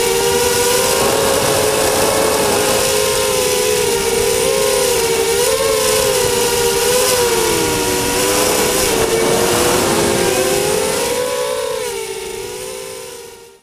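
Quadcopter's four Cobra 2208 2000kv brushless motors spinning 6x4.5-inch props, a steady whine of several close pitches that rise and fall together with the throttle. It fades out near the end.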